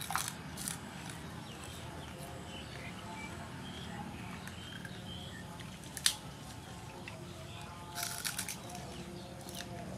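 Crunchy bites of crispy fried pork skin being bitten and chewed. There are a few crunches at the start, a sharp crack about six seconds in, and a quick run of crunches about eight seconds in.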